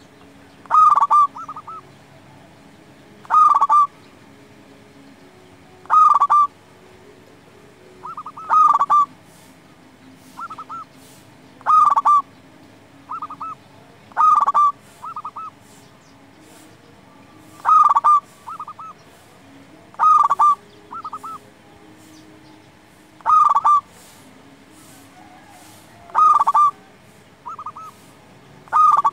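Zebra dove (perkutut) singing its cooing song: a brief rolling phrase of a few notes, repeated about every two to three seconds.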